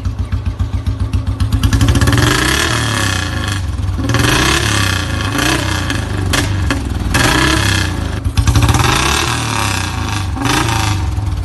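Royal Enfield Bullet 350's single-cylinder engine idling with an even thump, then revved in about four blips that each rise and fall in pitch.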